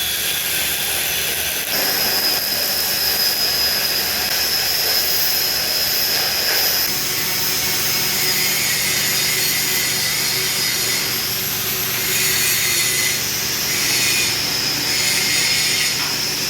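MIG welding arc burning steadily, a continuous hiss with a thin high whine joining about two seconds in.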